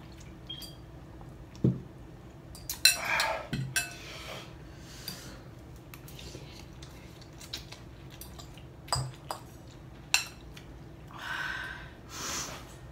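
Forks clinking and scraping against ceramic bowls of noodles, with a few short slurps; the sharpest clink comes about three seconds in.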